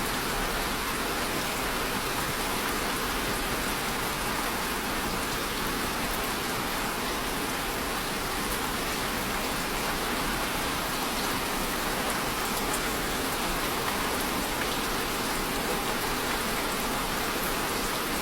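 Steady rain falling, an even patter of drops on a surface with faint scattered individual drop ticks.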